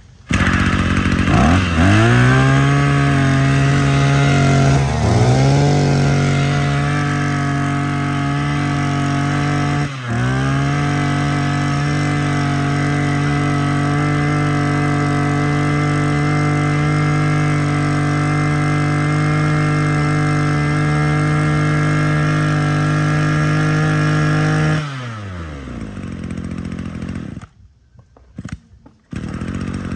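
Maruyama 26cc two-stroke brush cutter engine starting and winding up to a steady high speed. It dips briefly and recovers twice, then is shut off after about 25 seconds, its pitch falling as it runs down.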